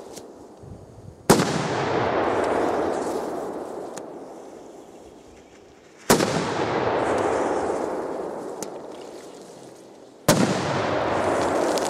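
Gorilla Bomb firecrackers going off: three sharp bangs about four to five seconds apart. Each bang is followed by a long rushing after-sound that slowly dies away.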